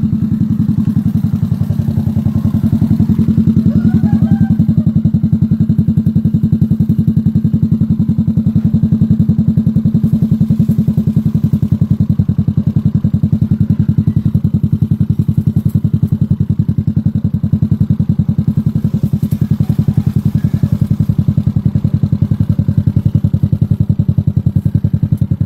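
Motorcycle engine idling steadily, its exhaust pulsing evenly right at the muffler outlet.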